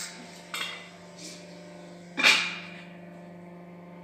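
Hydraulic press running with a steady motor and pump hum, broken by sharp metal clanks: one about half a second in, a lighter one a second in, and the loudest just past two seconds, ringing briefly.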